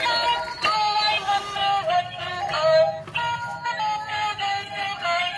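A baby walker's electronic music panel playing a tune through its small speaker: a melody of short stepping notes in a synthesized voice. The tune playing shows the repaired music unit is working again.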